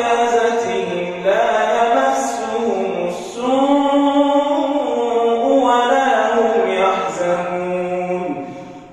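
A man's voice reciting the Quran in a slow, melodic chant, holding long notes. He breaks for breath about a second in and again about three seconds in, and the phrase trails off near the end.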